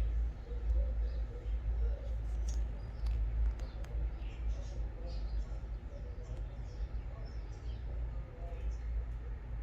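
Two budgerigars softly chattering, with faint short chirps and little clicks scattered throughout, over a steady low hum.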